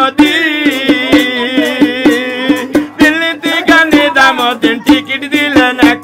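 A man singing a Bengali Marfati folk song. He holds one long wavering note for about two and a half seconds, then goes on in shorter phrases. Throughout, a metal water pot is struck by hand as a drum at a steady beat.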